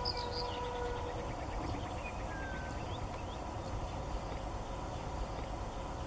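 Small birds chirping, mostly in the first couple of seconds, over a steady low rumble outdoors.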